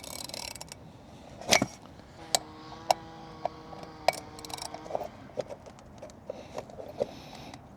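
Metal hand tools being handled and clinking, with a sharp click about one and a half seconds in, then a run of clicks over a steady ringing tone lasting a few seconds, as tools are tried on a stuck oil filter housing cap.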